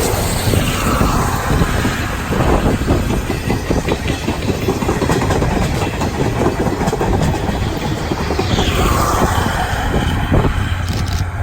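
A passenger train hauled by the steam locomotive C57 180 with 12-series coaches, passing close by with its wheels clattering over the rail joints above a steady low rumble. The higher part of the sound thins out suddenly near the end.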